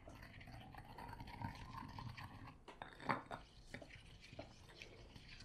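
Stone pestle stirring and working a wet coconut-milk spice marinade in a stone mortar: faint wet scraping and squishing with small knocks of stone on stone, one a little louder about three seconds in.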